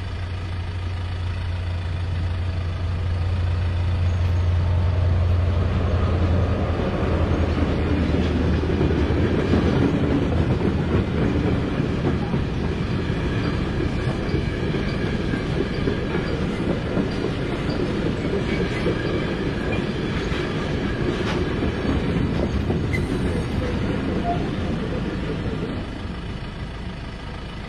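ÖBB class 2016 diesel-electric locomotive passing with its engine running, then a freight train's wagons rolling by with wheels clicking over the rails, the noise dropping off near the end.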